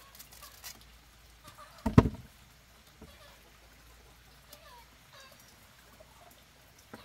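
A single heavy thud about two seconds in, among a few light clicks and knocks.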